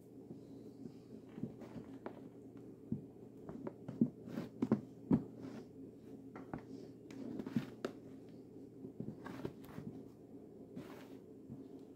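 Sneaker soles stepping on a wooden floor and crushing a piece of bread: scattered short crunches and taps, over a low steady hum.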